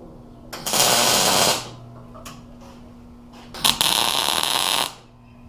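MIG welder arc crackling and sizzling as steel is welded, in two bursts of about a second each: one near the start and one a little over halfway through.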